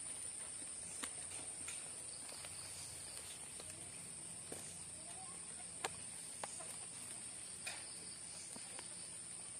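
A steady, high-pitched night chorus of crickets and other insects, with scattered light clicks and knocks from footsteps in twigs and leaf litter; the sharpest knock comes a little before six seconds in.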